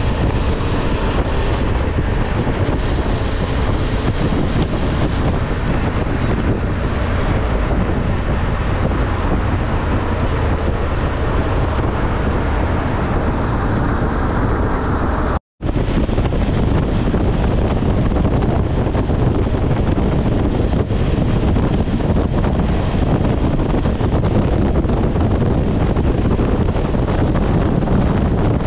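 Wind rushing over the microphone of a motorcycle riding at highway speed, with engine and road noise underneath. The sound cuts out for a moment about halfway through, then carries on the same.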